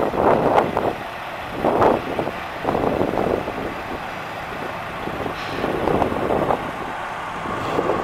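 Wind buffeting the microphone in uneven gusts, over the low sound of a vehicle driving: the 1979 Chevrolet C10 pickup approaching on the road below.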